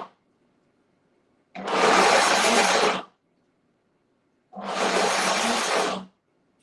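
Optimum G2.6 high-speed blender running its smoothie program on a thick raw-cashew cream mixture. The motor pulses on and off: it whirs for about a second and a half, stops dead for about as long, and then does the same again.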